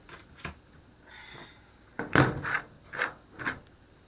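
Rummaging through a box of phones, handling hard objects: a few light clicks, a brief scrape about a second in, then a cluster of louder knocks and clatter about two to three and a half seconds in.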